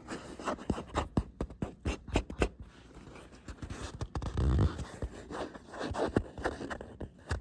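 Hands rubbing and flexing the dried leather of an old leather jacket: irregular scratchy scrapes and crinkles, with a louder handling bump about halfway through.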